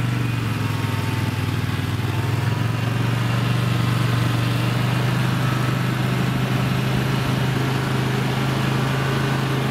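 Homemade snowmobile's engine running at a steady speed while the machine rides across snow, a continuous even drone with no change in pitch.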